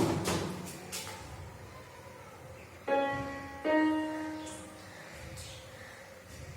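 Casio CT-S200 Casiotone electronic keyboard being played. A loud sound fades at the start, then two sustained notes follow about three seconds in, one straight after the other, the second fading away.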